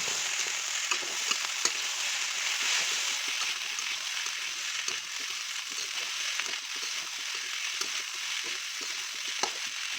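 Fried rice sizzling in a hot pan while it is stirred and turned with a spatula: a steady frying hiss with light scraping clicks. The sauce has just gone in and the rice is being mixed until the seasoning is even.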